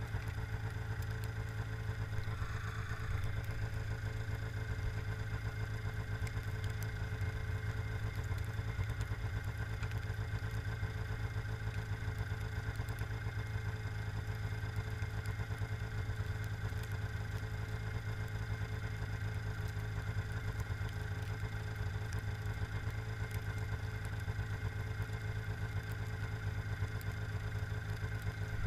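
Arctic Cat ZR 500 snowmobile's two-stroke engine idling steadily with the sled standing still.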